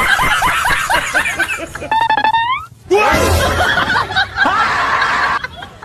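People laughing over background music, breaking off briefly about halfway through.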